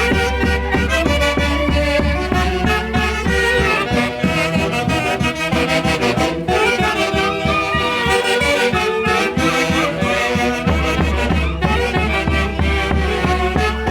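Andean orquesta típica playing Santiago festival music: wind instruments carry the melody over a steady beat. The low beat thins out for a few seconds midway and comes back near the end.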